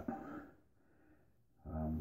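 Mostly quiet room tone. A man's voice trails off at the start, and a short, steady, low voiced sound from him comes near the end.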